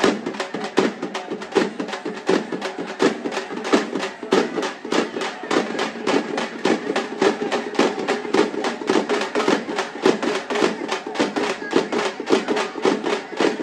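Fast, steady drumming: sharp, even strikes several times a second, running without a break.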